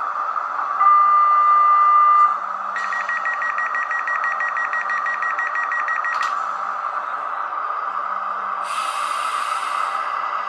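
Digital sound of an H0 ÖBB 4020 S-Bahn model's ESU LokSound 5 decoder playing through its small loudspeaker: a steady electric train running hum, with a held tone signal about a second in that lasts about a second and a half and is the loudest sound. Then comes a fast buzzing beep for about three and a half seconds, and a short burst of air hiss near the end.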